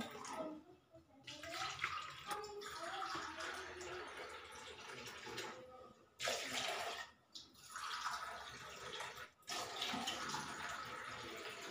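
Water running from a water purifier's tap into a small steel cup, in several runs with short breaks between them.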